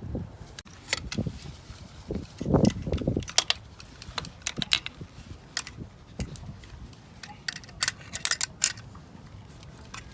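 Irregular clicks, taps and dull knocks of tools and metal fittings being handled, with a cluster of heavier knocks about two and a half seconds in and a quick run of sharp clicks near the end.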